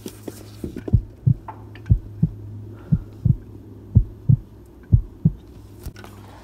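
A person's heartbeat picked up by a phone microphone pressed against the chest through a T-shirt. Five double lub-dub thumps come about a second apart over a steady low hum.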